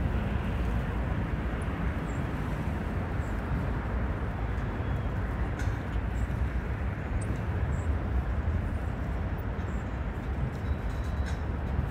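Steady outdoor background rumble: an even, unbroken noise with most of its weight low down and no distinct events.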